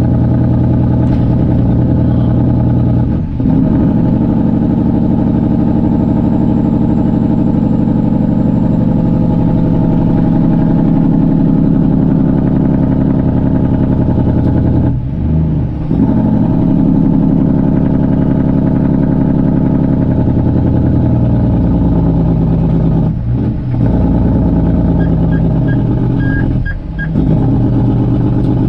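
Straight-piped Cummins diesel of a Kenworth C500 winch truck running loud under load. It drops off briefly about four times, each time coming back at a different pitch, as between gear shifts.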